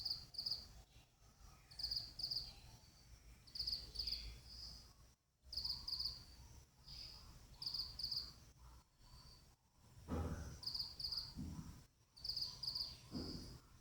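Cricket chirping: short high-pitched chirps of two or three quick pulses, repeating about once a second. A few lower, rougher sounds come in about ten seconds in and again near the end.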